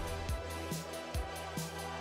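Background music with a steady beat, about two drum hits a second over sustained electronic tones.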